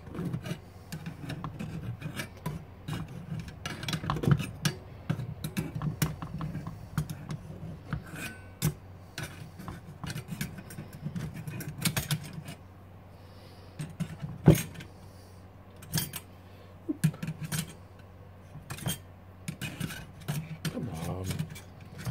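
Steel screwdriver scraping, clicking and rattling against the metal burner head and pot supports of an MSR XGK EX stove as the centre cap is levered off. The clicks are irregular, with a sharp loud click about 14 seconds in.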